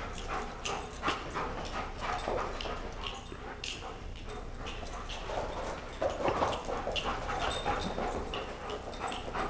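Several dogs playing rough together: scuffling and scrabbling of paws on the floor, with short whines and yips. The sounds come in scattered bursts, busiest a little past the middle.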